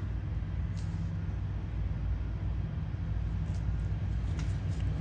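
Steady low hum of background machinery, with a few faint light clicks about a second in and again near the end.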